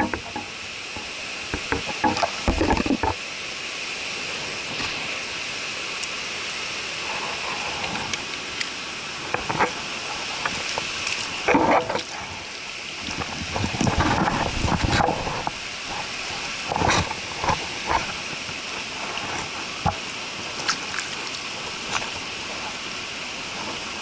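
Mountain stream running steadily, with scattered splashes and sloshing from a landing net and hands being worked in the shallow water at the bank.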